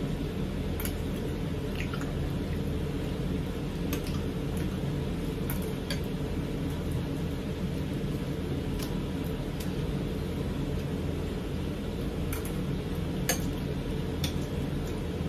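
Eating at the table: scattered light clinks of a metal spoon against ceramic bowls and plates as curry is scooped, the sharpest about 13 seconds in, over a steady low hum.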